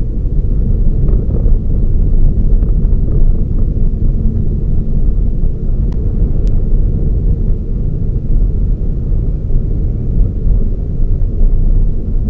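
Toyota Raize small SUV on the move: a steady low rumble of engine and road noise, with no change in pitch.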